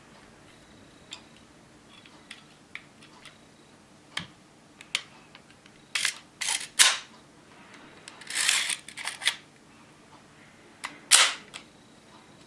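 Plastic clicks and clacks of a 3D-printed Hino-Komuro pistol model being handled and its mechanism worked: scattered light clicks, then a quick run of sharper clacks, a scraping rattle lasting about a second, and one sharp clack near the end.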